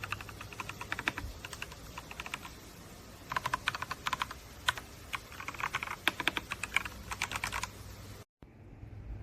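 Typing on a ZIYOU K3 mechanical keyboard with red switches: runs of quick key clicks, the busiest a little after three seconds in and again from about five and a half to seven and a half seconds in, with a brief drop-out of sound near the end.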